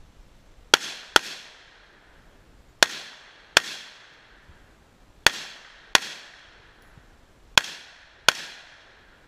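Rifle shots fired in four pairs, the two shots of each pair about half a second apart with roughly two seconds between pairs, each shot sharp with a short echoing tail.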